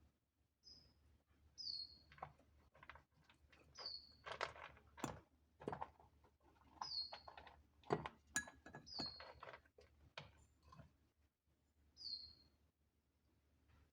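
Short, high bird chirps that fall in pitch, repeated every one to three seconds, with soft irregular clicks and crackles between them.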